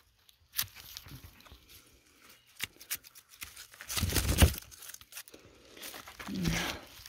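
Hand pruning shears snipping the stalks of dry taioba leaves: several short sharp clicks, with a louder crackling, tearing noise of dry leaf about four seconds in.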